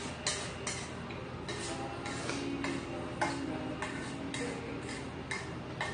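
Eating sounds from a meal of spicy cold noodles in a stainless steel bowl: an irregular string of short clicks and smacks, two or three a second, from chewing and from chopsticks and a spoon working against the bowl.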